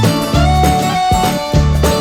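Music with guitar and a bass line moving through held notes.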